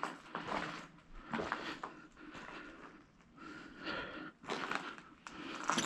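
Footsteps crunching over debris on a littered concrete floor, a scuffing step every half second to a second, with pauses.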